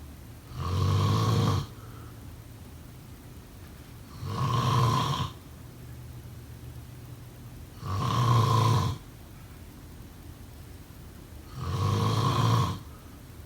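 A person snoring: four snores at an even pace, roughly one every four seconds, each lasting about a second.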